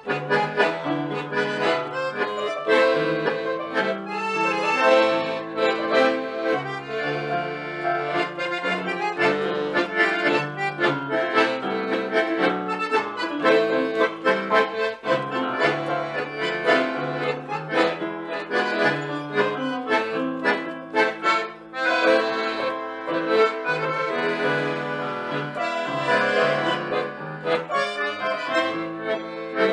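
Instrumental tango played by a trio of bandoneon, piano accordion and electronic keyboard, with reed melody and chords over a moving bass line.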